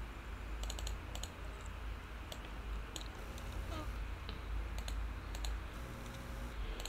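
A few scattered, light clicks of a computer mouse and keyboard keys, over a low steady hum.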